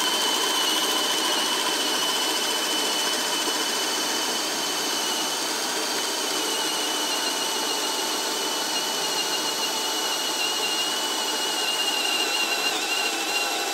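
HILTI brushless hammer drill boring a 1.5-inch spade bit into a pressure-treated 6x6 post: the motor runs steadily under load with a constant high whine, sagging slightly in pitch near the end, then stops.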